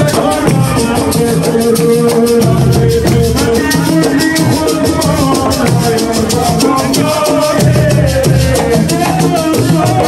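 Live Senegalese assiko music: a fast, even rattle-like percussion rhythm over drums, with a voice singing through a microphone.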